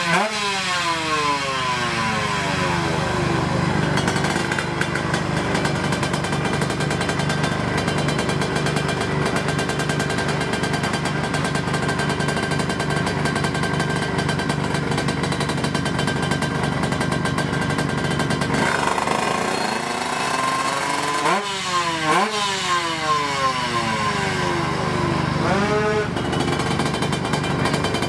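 Two-stroke drag motorcycle engines running loud and continuously. A falling rev comes right at the start, and there are sharp rev rises and drops twice near the end.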